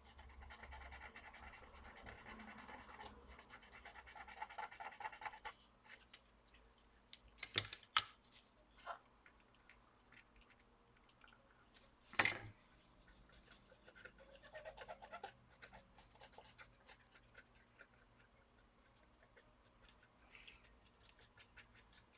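Faint scratching and scraping of small hand tools working on a laptop motherboard while a replacement power jack is soldered in, with a few sharp clicks, the loudest about twelve seconds in.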